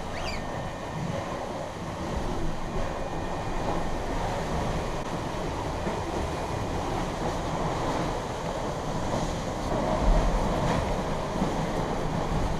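Steady rush of water along the hull and wind of a sailboat under way at speed, with a short low thump about ten seconds in.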